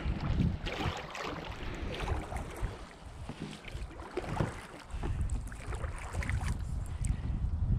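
Paddle strokes splashing in the water from a small hand-paddled boat. From about five seconds in, wind rumbles on the microphone.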